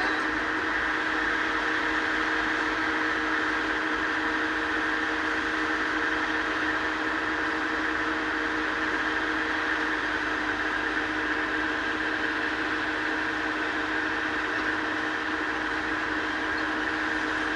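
Excavator's diesel engine and hydraulics running steadily, a constant drone with a steady whine and no clanks of rock.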